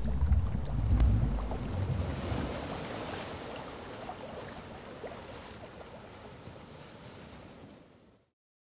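Logo sound effect: a deep rumble at the start, then a rushing, wave-like wash that slowly fades out over about eight seconds.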